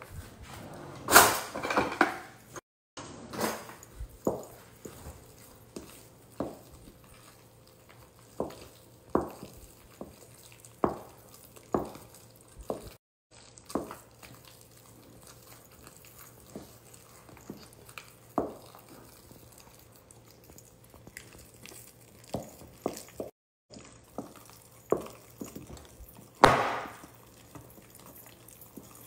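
Spatula mixing mashed potatoes in a glass bowl, knocking against the glass in irregular taps, with a couple of louder knocks about a second in and near the end.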